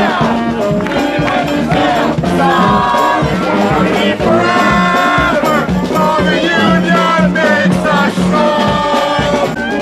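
A crowd of voices singing a song together, over a steady low musical note.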